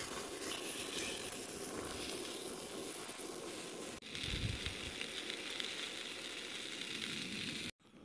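Bratwursts sizzling as they sear in a stainless steel frying pan on a single-burner camp stove. About halfway through the sizzle changes abruptly and goes on more softly with sliced peppers and onions in the pan, with a brief low thump just after; the sound cuts off suddenly near the end.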